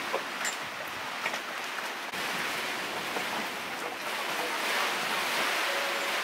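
Rain and wind on an anchored sailboat, a steady hiss with scattered raindrop ticks in the first couple of seconds. The sound changes abruptly about two seconds in and is a little louder after.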